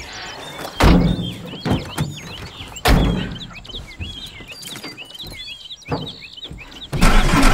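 Two heavy thuds, about one and three seconds in, over the steady chirping of small birds. Near the end a louder, rougher noise begins.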